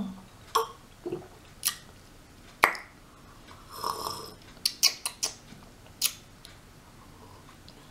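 Scattered light clicks and taps from objects being handled at a table, with one short airy, breathy sound about four seconds in.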